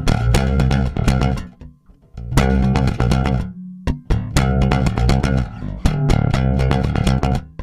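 Outro music of plucked bass and guitar: quick runs of sharply picked notes over a deep bass line, breaking off briefly about two seconds in and again near four seconds.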